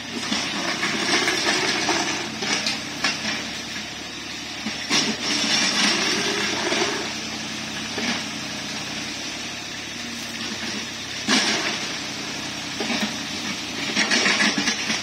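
Mini excavator's diesel engine running with a steady low drone, with several sudden bursts of hissing noise over it while it works.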